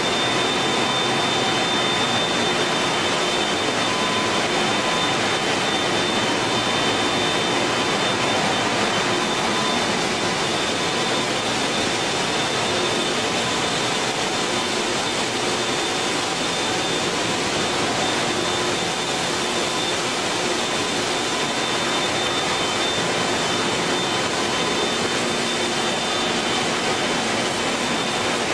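Steady din of machinery in a plastic recycling plant: a continuous loud rushing noise with a few faint steady high whines over it.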